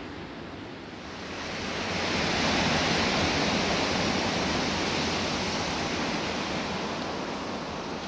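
Ocean surf on a beach: a wave's rush swells about a second in, is loudest around three seconds, then slowly fades back to a steady wash.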